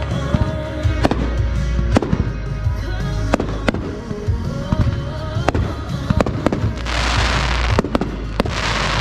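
Consumer fireworks going off in a rapid finale barrage: repeated sharp bangs over a deep rumble, with a longer hissing, crackling burst about seven seconds in. Background music plays under the explosions.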